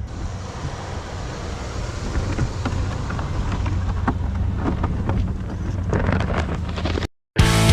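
Engine of a snow-plowing vehicle running steadily under load, with scattered knocks and rattles. Near the end the sound cuts out briefly and rock music starts.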